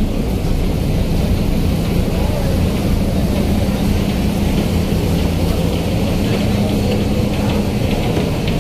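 Steady low drone of a large car ferry's engines and machinery, with a constant hum that drops away near the end.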